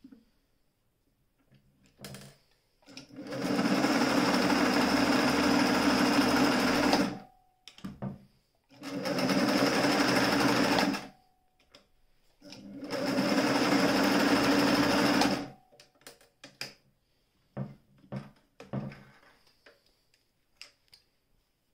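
Singer 449 electric straight-stitch sewing machine stitching fabric in three steady runs of a few seconds each, the longest about four seconds. Scattered clicks and knocks come between the runs and near the end.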